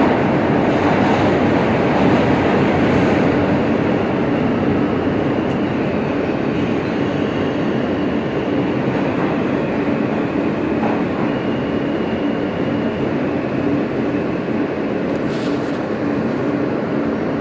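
Alstom R160A New York City subway car running on the Queens Boulevard line, heard from inside the car: dense wheel-and-rail noise over a steady low hum. It grows gradually quieter as the train slows for a station stop.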